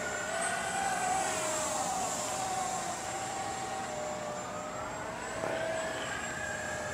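Whine of a radio-controlled model jet's 80mm electric ducted fan, run on a 6S battery, in flight. The pitch sinks over the first few seconds, then rises again near the end.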